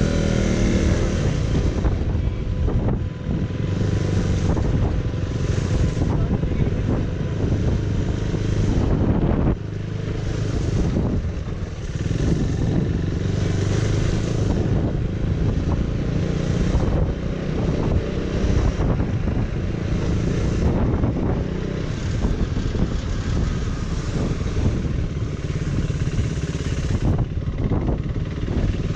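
Motorcycle engine running steadily as the bike rides slowly over a wet, rough gravel road, with a short drop in level about a third of the way in.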